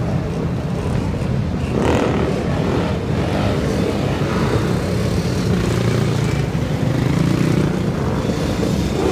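Motorbike and dirt-bike engines running and revving among slow car traffic, heard from inside a car.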